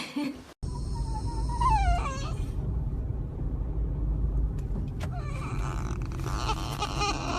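A dog whining in long, wavering calls that rise in pitch, twice, over a steady low rumble like a car's engine and road noise, which starts abruptly about half a second in.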